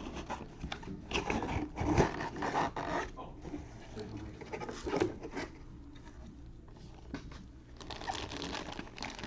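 Box packaging being opened and handled: irregular rustling and scraping, quieter for a couple of seconds in the middle, then busier again near the end.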